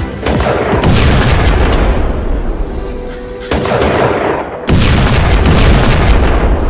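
Gun-blast and explosion sound effects: a few sudden loud booms, each trailing off in a long rumble, with background music underneath.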